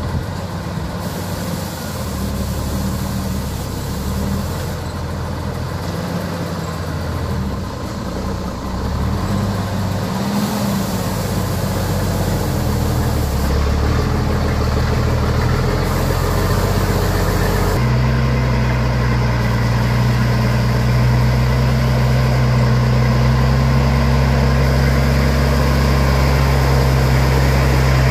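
Truck engine running and labouring, its pitch shifting up and down, then settling into a louder steady drone about eighteen seconds in.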